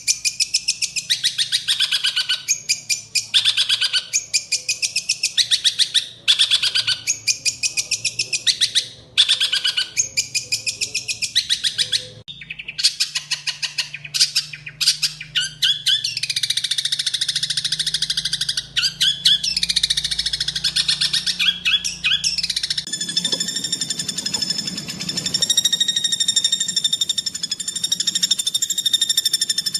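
Greater green leafbird (cucak ijo) song: harsh, high-pitched, rapid-fire 'tembakan' phrases of about a second each, repeated with short breaks and running almost unbroken for a stretch in the middle. Just past two-thirds of the way through, the song gives way to a steady, buzzing drone with overtones.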